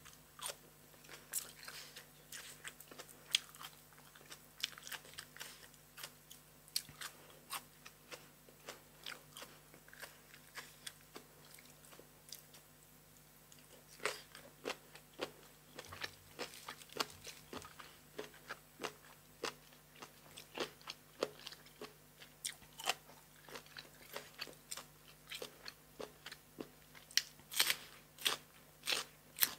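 A person biting and chewing crisp blanched cuttlefish: a steady run of sharp crunches, several a second. There is a quieter pause of a couple of seconds near the middle, and the loudest bites come near the end.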